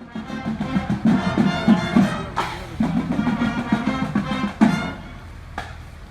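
Music with brass and drums playing a repeated rhythmic figure, stopping suddenly about three-quarters of the way through and leaving only a quieter background.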